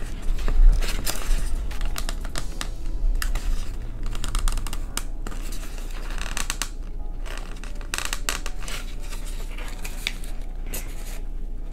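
Corrugated cardboard being handled, rustling and scraping with scattered small clicks and crinkles as pieces are bent and pressed into glued seams.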